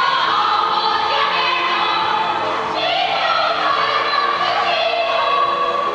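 A school choir singing in several-part harmony, moving between held chords.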